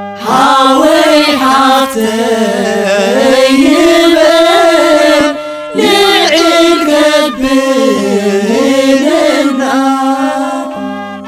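A Tigrinya Ethiopian Orthodox hymn (mezmur) sung with a wavering, ornamented melody over steady instrumental accompaniment. The voice pauses briefly twice near the middle.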